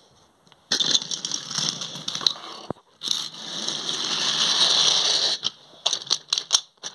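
Handling noise of plastic toy train pieces being coupled: two long stretches of scraping and rubbing, then a run of light plastic clicks near the end.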